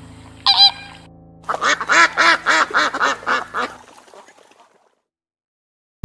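Flamingos calling: a single call about half a second in, then a quick run of calls, several a second, that fades away near the end. Soft piano music plays beneath the calls and fades out with them.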